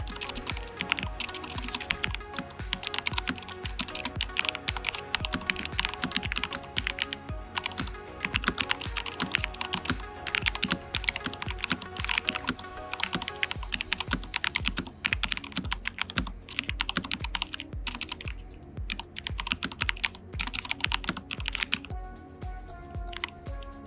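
Fast continuous typing on an Edra EK387 Pro mechanical keyboard with Gateron Pro switches, a dense run of keystroke clacks that stops about 22 seconds in, over background music.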